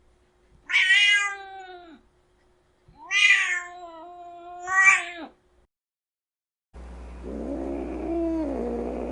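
Angry domestic cat yowling: two long, drawn-out calls, the second rising sharply near its end. From about seven seconds in comes a lower, rougher yowl mixed with hiss-like noise over a steady low hum.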